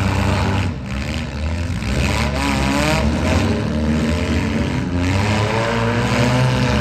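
Demolition derby cars' engines running loudly, revved up and down several times.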